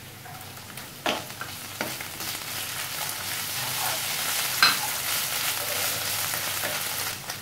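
Onions with ginger and garlic paste sizzling in hot oil in a non-stick frying pan as a plastic spatula stirs them. The sizzle grows louder about two seconds in, and the spatula knocks against the pan three times.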